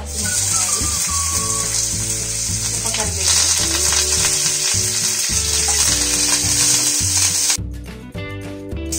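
Hot oil sizzling hard in a nonstick frying pan as green chillies and then curry leaves are dropped into a mustard-seed and dal tempering, growing louder about three seconds in. Near the end the sizzle falls off sharply as chopped onion goes in and is stirred with a spatula.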